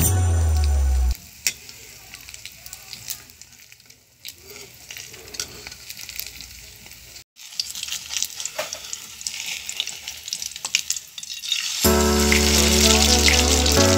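Sardine-and-egg batter frying in hot oil in a wok: a steady crackling sizzle, with a metal spoon clicking and scraping against the pan now and then. Background music plays for the first second and comes back about 12 seconds in.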